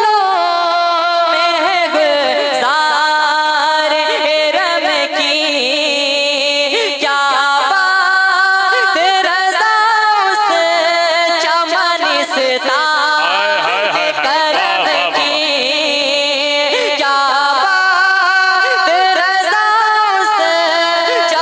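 A young man's voice singing a naat, an Urdu devotional song in praise of the Prophet, into a microphone. Long held notes waver and turn in ornamented runs.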